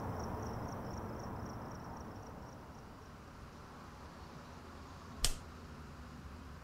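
Faint cricket chirping, a quick even pulse that fades out within the first two or three seconds, over low room tone. About five seconds in, a single sharp click.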